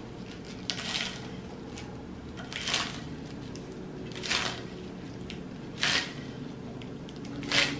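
Kitchen knife slicing through a stack of chard leaves onto a wooden cutting board: five cuts about a second and a half apart, the last the loudest.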